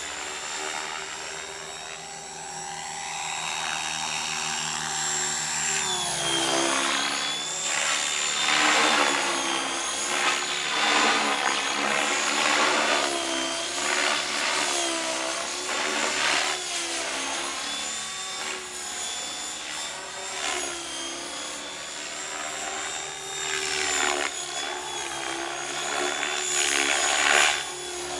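Model helicopter in flight: the motor and rotor run with a steady high whine. From about six seconds in, pitch and loudness rise and fall again and again as it banks and dives overhead, with the loudest swell near the end.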